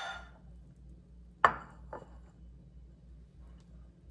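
Utensil knocking against dishware: a sharp clack about a second and a half in, with a fainter knock half a second later, over a low steady hum.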